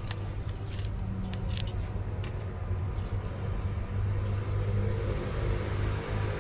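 An engine running steadily at a constant speed, a low even rumble, with a few light clicks over it.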